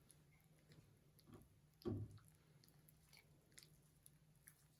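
Faint sticky clicks and crackles of freshly activated, still very sticky slime being pulled and kneaded by hand, with one soft thump about two seconds in.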